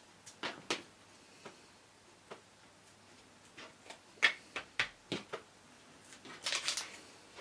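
Small scissors snipping foam strip, then a series of sharp clicks and taps as the scissors and card pieces are handled and set down on a craft mat, with a short rustle of card near the end.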